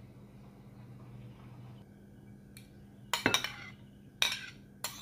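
Steel spoon clinking against a ceramic plate and a glass dish while scraping chopped vegetables across: a few sharp clinks in the second half, after a quiet start.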